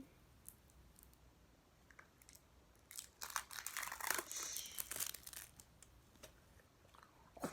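Plastic packaging crinkling and tearing as a slime toy is opened by hand, starting about three seconds in and lasting a couple of seconds, with a few small clicks before and after.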